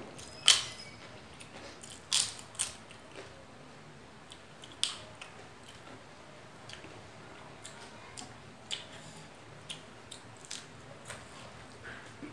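Biting into and chewing a crisp fried potato chip: a loud crunch about half a second in, more crunches around two and five seconds, then softer crackling chews.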